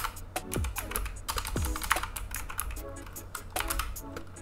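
Typing on a computer keyboard: a quick run of keystroke clicks, over background music with a steady beat.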